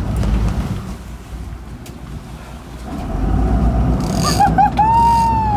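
Low rumble of a boat's engine with wind buffeting the microphone, growing louder about three seconds in. Near the end, two short high yelps and then one longer arching cry that falls in pitch as it ends.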